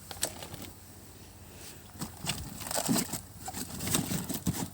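Handling noise: plastic bags crinkling and rustling with scattered light knocks and clicks, busier in the second half.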